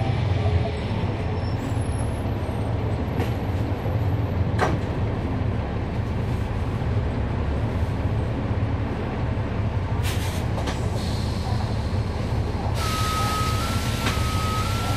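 Riding inside a 2011 NABI 416.15 transit bus: its Cummins ISL9 diesel and ZF Ecolife six-speed automatic running with a steady low rumble, broken by a few rattles and knocks. About two seconds before the end a hiss and a steady high whine start together.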